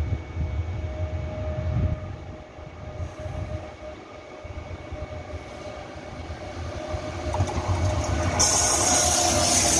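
Passenger coaches of a Trenord regional train rolling past at close range, their wheels rumbling along the rails. The sound grows louder near the end, and a loud hiss sets in suddenly about eight seconds in.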